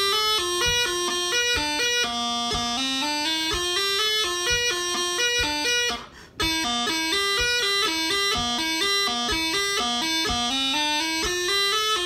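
Bagpipe practice chanter playing a lively pipe tune at a brisk, upbeat tempo, reedy notes stepping quickly with fast gracenotes. The playing breaks off for a moment about halfway through, then carries on.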